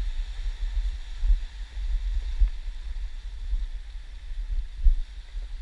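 Wind buffeting the microphone in uneven gusts, over the faint steady wash of small surf breaking on a stony beach.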